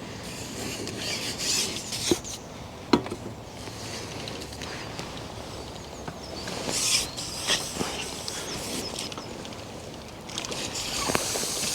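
Outdoor lakeside background with scattered sharp clicks and rustles from handling a fishing pole while a hooked carp is played, and a couple of short rushing noises, one about a second in and one around seven seconds in.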